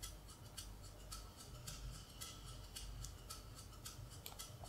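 Shaker loop in a Logic Pro X session playing back faintly: short, crisp, high-pitched ticks in a steady rhythm.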